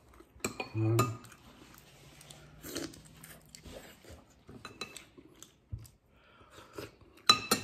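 Metal spoon clinking and scraping against a ceramic soup bowl in a series of separate taps while scooping soup, the loudest clinks near the end.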